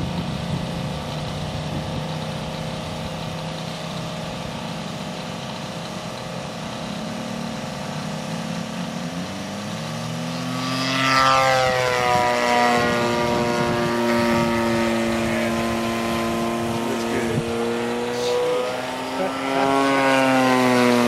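DLE 50cc single-cylinder two-stroke gas engine with a 22x8 propeller on a 27% Extra 330S RC plane, running low and steady at first. About ten seconds in it is throttled up for the takeoff run, and the engine note climbs and gets louder. The pitch drops sharply as the plane goes by, then swings up and down again near the end.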